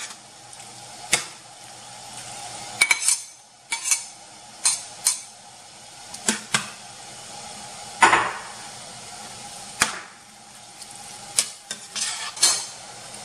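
Ground beef and diced tomatoes sizzling in a stainless steel pan while a metal spoon stirs them. The spoon clanks and scrapes against the pan a dozen or so times, loudest about eight seconds in.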